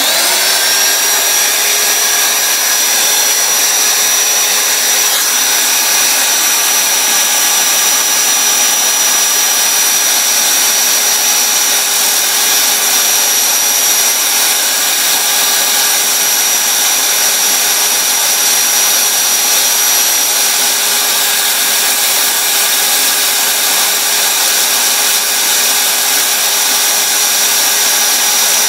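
Electric drill starting up abruptly and running at a steady speed, spinning a cork mounted on a chopstick, with sandpaper rubbing against the turning cork as it is sanded into a float shape.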